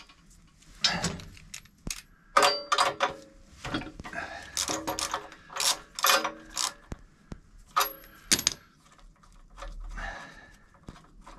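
Irregular metallic clinks and clanks of a hand tool and small parts being handled on a Lambretta scooter engine, some of the knocks ringing briefly.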